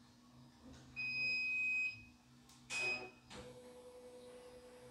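Computerised embroidery machine's control panel beeping: one high beep lasting about a second, then a short beep with a click about three seconds in. A steady low hum starts just after.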